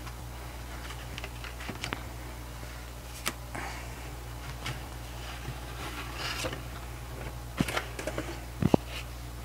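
Paper and card handling: printed cards and inserts sliding and rustling as they are taken out of a cardboard album box, with scattered small clicks and taps, the sharpest near the end, over a steady low hum.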